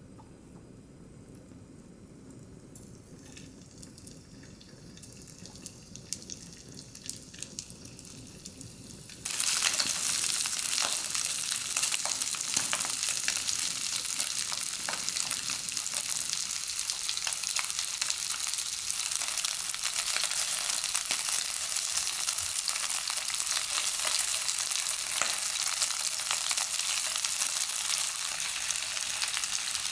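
A frying pan hisses quietly with a few small crackles, then about nine seconds in food goes into the hot oil and a loud, steady sizzle starts and keeps going as the stir-fry cooks.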